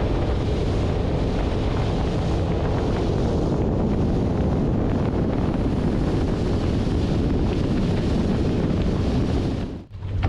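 Wind buffeting the microphone over the steady rush of water and engine as a fishing boat runs at speed through its wake. The noise breaks off abruptly shortly before the end.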